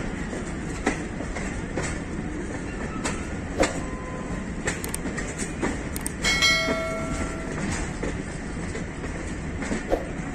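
Pakistan Railways Tezgam passenger coach running along the track, a steady rumble with wheel clicks over the rail joints about once a second. About six seconds in, a horn sounds once for about a second and a half.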